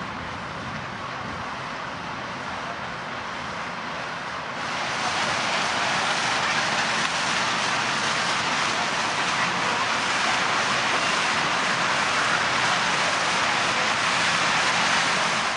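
Paddle steamer Waverley's paddle wheel churning the water as the ship passes close by: a steady rushing wash that grows louder about four and a half seconds in.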